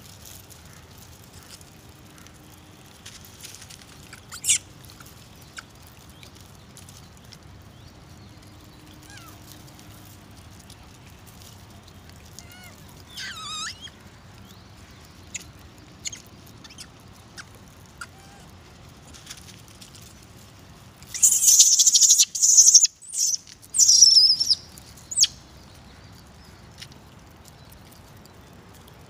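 A troop of macaques feeding together: scattered short, high-pitched squeaks and chirps over a steady outdoor background, then about three-quarters of the way through a burst of loud, shrill screeching lasting about four seconds, typical of monkeys squabbling over food.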